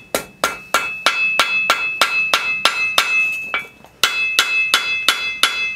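Hand hammer striking a hot horseshoe-rasp blade on an anvil, about three blows a second, each one ringing. There is a short pause a little past halfway, then the blows resume. The smith is forging a bevel on one edge of an adze blade.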